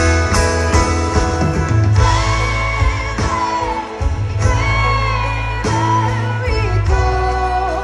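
Live band music: a woman singing in Spanish with long held, wavering notes, over strummed acoustic guitar and electric bass.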